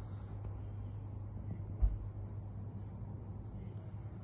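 Crickets and other insects trilling steadily, with a regular chirp pulsing through the background. A single low thump sounds just under two seconds in.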